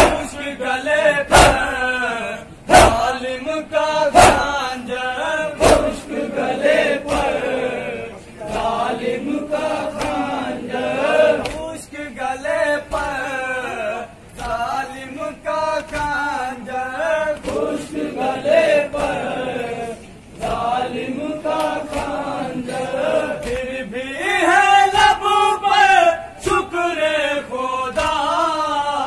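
A group of men chanting a mourning lament together. Sharp slaps of hands striking chests (matam) keep a steady beat about once every second and a half, loudest in the first several seconds.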